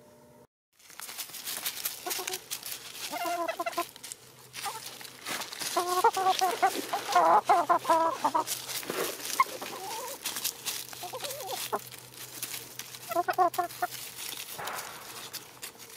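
Hens clucking in short runs several times, loudest in the middle, over a steady crackle and rustle of dry leaf litter as they move and scratch about.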